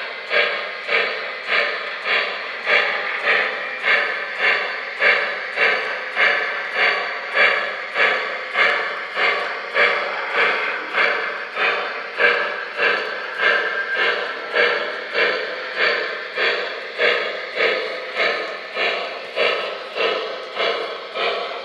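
Model 2-8-2 steam locomotive's sound-decoder chuffing, a steady beat of about two chuffs a second as the train runs slowly at restricted speed.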